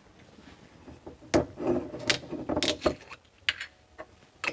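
Handling of a wine bottle as its metal screw cap is twisted off and a replacement cap is fitted: several sharp clicks with rubbing between them.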